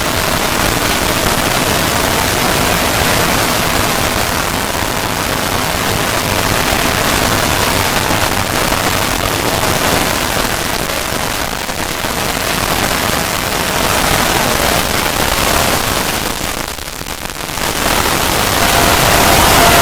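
Loud, continuous hissing noise like static, dipping briefly about seventeen seconds in before coming back.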